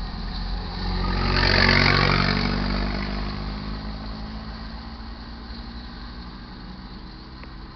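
A road vehicle's engine passing by, rising to its loudest about two seconds in and then fading away.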